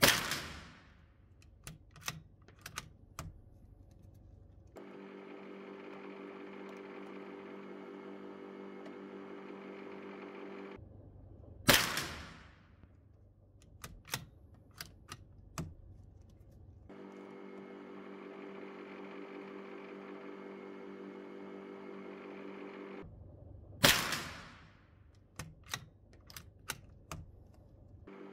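A CZ 457 bolt-action rifle in .22 LR fired three times, about twelve seconds apart, each shot ringing briefly in the room. A couple of seconds after each shot come several sharp clicks of the bolt being worked to chamber the next round.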